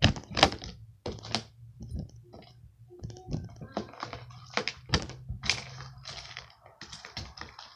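Irregular clicks, taps and light knocks of squishy toys being taken out and set down one after another, over a faint steady hum.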